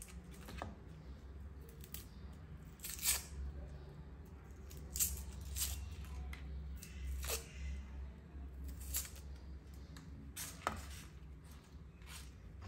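Dry papery onion skin being peeled off by hand: scattered short crackles and tearing rustles at irregular intervals, over a faint steady low hum.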